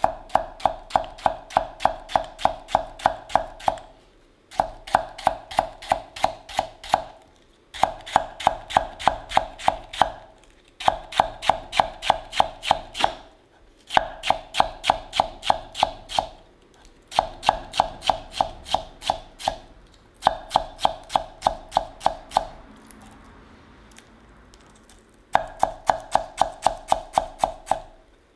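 Kitchen knife slicing myoga thinly on a ginkgo-wood cutting board: quick, even knocks of the blade on the board, about four or five a second, each with a short woody ring. The strokes come in runs of two to three seconds with brief pauses between, and one longer pause near the end.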